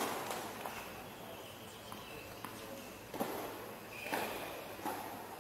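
Tennis ball bounced on a hard court by the server readying to serve: three short knocks under a second apart in the second half, over outdoor background noise.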